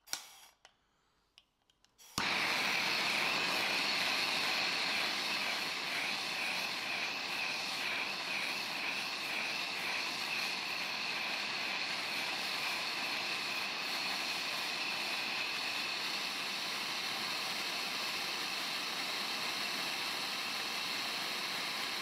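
A few faint clicks, then about two seconds in a MAP gas torch lights and its flame burns with a steady hiss.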